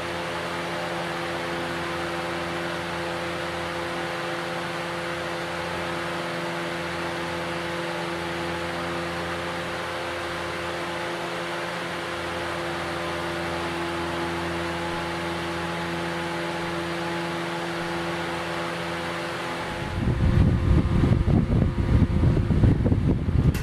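Casablanca Zephair 16-inch oscillating table fan running steadily: an even rush of air over a low motor hum. About 20 seconds in its airflow reaches the microphone, and loud, gusty wind buffeting takes over.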